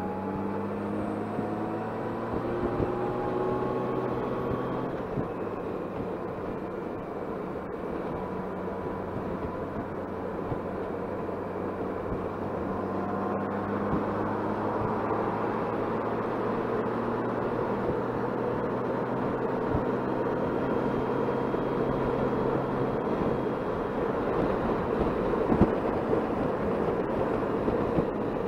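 Touring motorcycle engine pulling up through the gears, its note rising in steps, with wind and road noise growing louder as it gathers speed.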